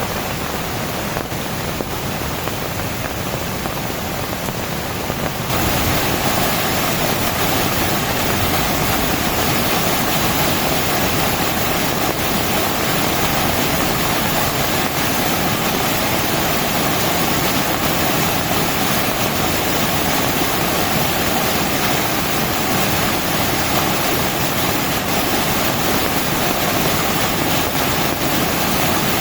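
Heavy tropical rain pouring down in a steady, dense hiss, jumping abruptly louder about five and a half seconds in.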